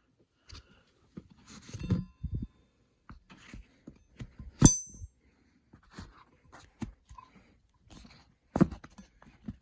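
Steel aviation wrenches being handled, with scattered light knocks and clicks and one sharp metallic clink that rings briefly about halfway through, then another solid knock near the end.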